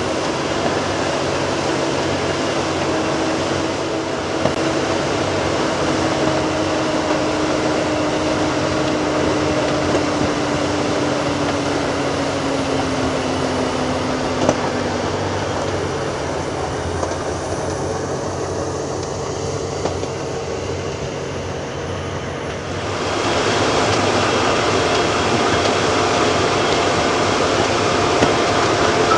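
Diesel engines of heavy earthmoving machinery running. One engine note slowly drops in pitch over the first half, and the sound gets louder about 23 seconds in.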